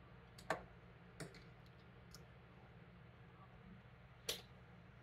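Three faint, sharp clicks of a fork against a plate while eating, over a low steady room hum.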